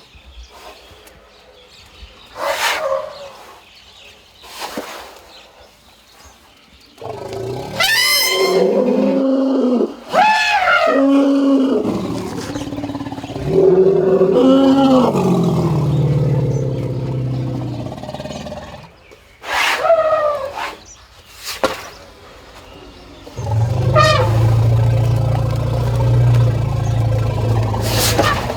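Asian elephants calling to one another: several short, sudden squeaks and trumpets, and a long run of loud roaring calls whose pitch bends up and down in the middle. A steady low rumble sets in near the end.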